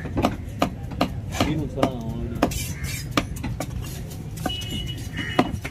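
Long heavy knife chopping a tuna loin into chunks on a wooden log block: an uneven run of sharp knocks, about two to three a second, as the blade cuts through the flesh and strikes the wood. Voices talk in the background.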